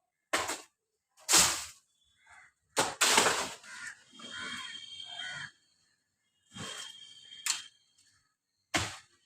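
A string of sharp knocks and cracks at irregular intervals, about six of them, the one around three seconds in running on for half a second, from the cutting of a coconut tree.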